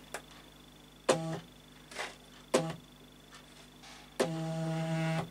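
Hobby CNC Y-axis stepper motor, driven from a stepper tester, running the carriage in short spurts with a steady pitched hum, then a longer run of about a second near the end.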